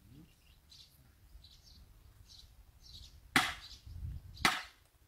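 Faint bird chirps, then two loud, sharp cracks a little over a second apart about three and a half seconds in.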